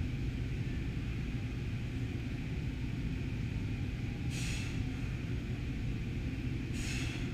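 Steady low rumble of room noise, with two short hissing exhales, about two and a half seconds apart in the second half, from a lifter straining through heavy paused bench-press reps.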